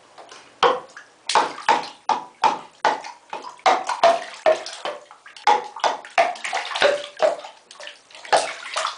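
Water in a bathtub slapped and splashed repeatedly in quick, irregular bursts, about two to three splashes a second.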